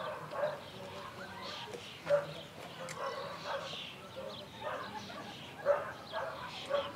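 A dog barking and yipping repeatedly in short calls.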